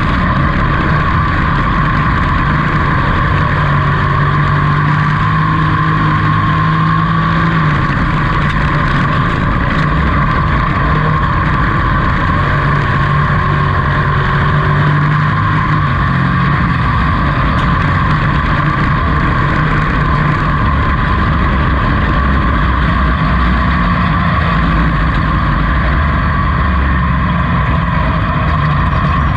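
Dirt-track pro truck's engine running hard, heard from inside the cab, at a fairly steady pitch that rises and dips a little, with a constant high whine above it.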